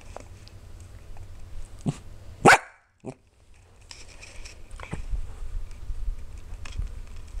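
Cardigan corgi puppy giving a soft yip and then one loud, short bark about two and a half seconds in, followed later by sniffing close to the microphone.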